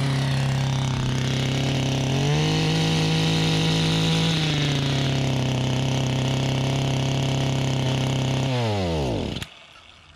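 Echo PE-2000 edger's small two-stroke engine running steadily on its freshly fitted carburetor. It speeds up about two seconds in and settles back at about four and a half seconds. Near the end it is switched off and spins down to a stop, falling in pitch.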